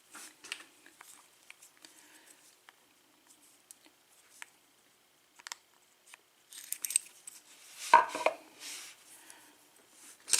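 Small metallic clicks and clinks of hand tools working the retaining clip off a Kwikset pin-tumbler lock cylinder, with a louder burst of clattering about eight seconds in.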